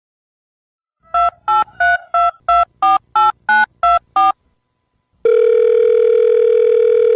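Telephone keypad tones dialing about ten digits, each a short two-note beep, about three a second. Starting about five seconds in, a loud steady line tone follows and runs on.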